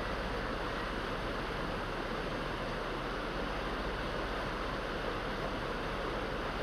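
Steady rushing of water, an even, unbroken noise with a low hum beneath it.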